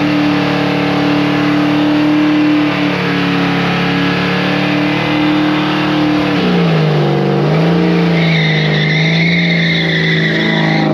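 Ford Falcon's engine held at high revs in a burnout, rear tires spinning on wet concrete. About six seconds in the revs dip, wobble and settle lower, and a high tire squeal joins over the last few seconds.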